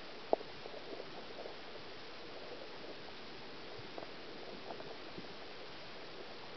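Underwater ambience in shallow water: a steady hiss with scattered faint ticks and pops, and one sharper click a fraction of a second in.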